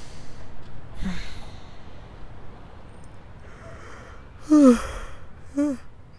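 A person breathing out and sighing: breathy exhales near the start and about a second in, then a louder voiced sigh falling in pitch about four and a half seconds in, and a shorter one about a second after.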